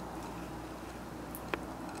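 A basset hound chewing a cow ear, with one sharp crunch about a second and a half in, over a steady background hiss.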